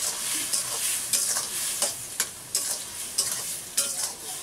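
Ridge gourd and potato pieces sizzling in hot oil in a steel wok while a metal spatula stirs them, clicking and scraping against the pan again and again.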